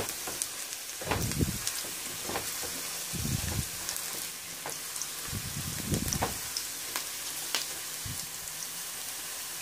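Sliced onions sizzling in hot oil in a non-stick frying pan as they brown, with scattered crackles of spitting oil. A spatula scrapes and stirs through them a few times.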